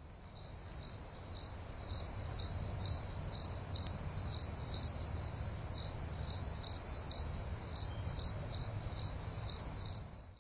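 Cricket chirping steadily on one high pitch, about two chirps a second, over a low background hum; it cuts off suddenly at the end.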